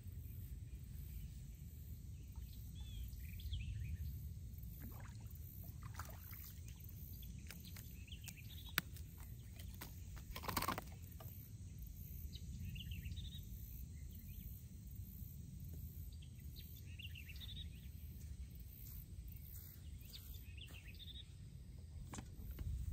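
Quiet outdoor background with a steady low rumble and scattered short bird calls. About ten seconds in there is a brief, louder rustling noise.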